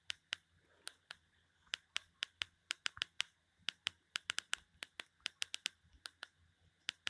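A string of faint, sharp clicks coming irregularly, about five a second, some bunched in quick runs.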